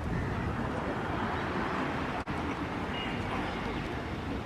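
Steady wash of sea surf breaking on the beach, mixed with low wind rumble on the microphone; the sound cuts out for an instant about two seconds in.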